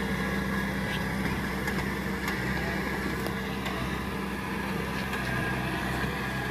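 Kubota rice combine harvester's diesel engine running steadily at a constant speed as the tracked machine crawls through a muddy, flooded paddy.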